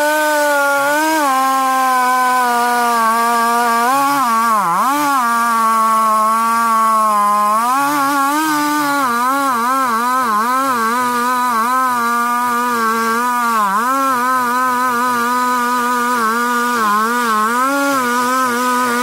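Two-stroke chainsaw running at high revs, its engine note dipping and recovering again and again as the chain bites into the log.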